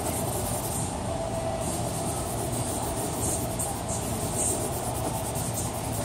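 Steady low rumbling background noise, with short scratchy strokes of a charcoal stick on drawing paper in the second half.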